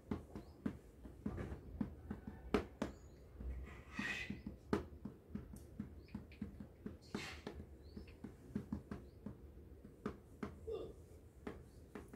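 Light, irregular clicks and taps, several a second, from a thin paintbrush working on cloth stretched taut in a wooden embroidery hoop and from the hoop being handled. There are a couple of short rustles about 4 and 7 seconds in.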